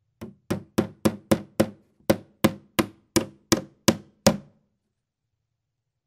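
Hammer driving a nail into wood: a run of about a dozen sharp strikes, roughly three a second, with a short pause after the first six, stopping a little over four seconds in.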